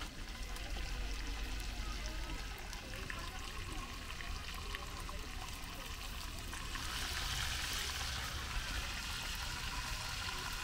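Leftover meat pieces frying in oil in a wok over a portable gas burner: a steady sizzle that grows louder for a couple of seconds about seven seconds in.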